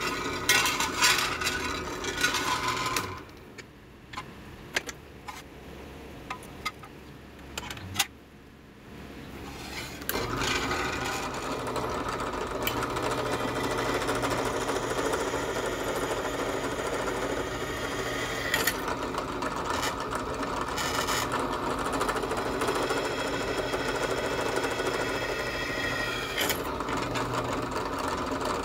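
Steel sheet clinking as it is handled on the cast-iron drill press table, then, about ten seconds in, the bench drill press starts and runs steadily while a 3.5 mm bit drills a pilot hole through the steel plate.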